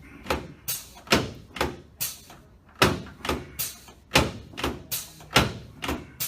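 A rapid series of sharp, bright knocks, about two or three a second, each ringing out briefly, with one short pause about two seconds in.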